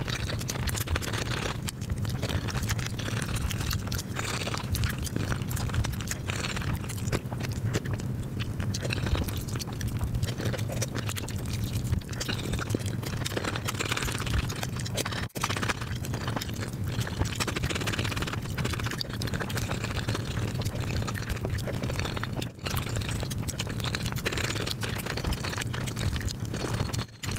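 Close-miked eating sounds played back at five times speed: a dense, rapid run of chewing and mouth clicks, with a plastic fork scraping and tapping in a foil tray of rice. The sound drops out briefly a few times where clips are joined.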